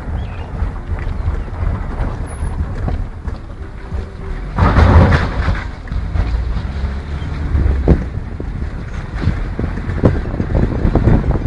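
Wind buffeting the camera microphone: a steady low rumble, with a stronger gust about five seconds in.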